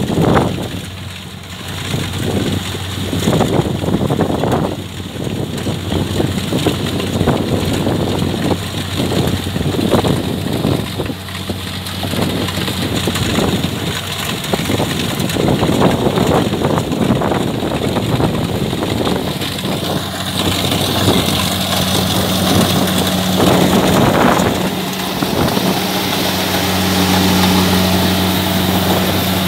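Kubota DC70 combine harvester running steadily at work, its diesel engine keeping a constant low drone that becomes more prominent about twenty seconds in.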